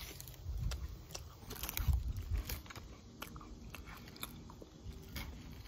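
A person chewing a crunchy snack close to the microphone: crisp crunches and clicks over low chewing thuds, the heaviest about half a second and two seconds in.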